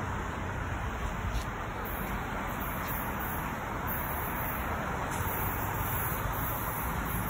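Steady rushing outdoor background noise with an unsteady low rumble underneath, as from wind on the microphone and distant traffic.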